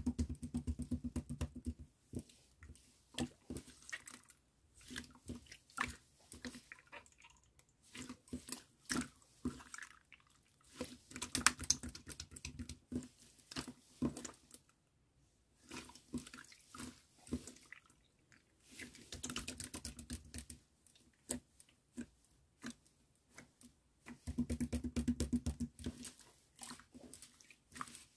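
Clear jelly slime being pressed, squeezed and kneaded by hand: runs of quick, wet, sticky clicks and pops as the slime is squashed and pulled apart.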